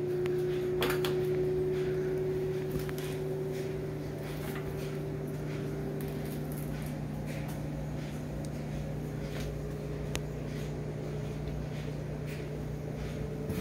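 Steady low hum with faint scattered clicks and taps.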